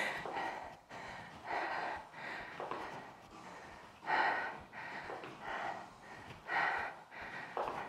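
A woman breathing hard under exertion: short, forceful exhales that recur about once a second.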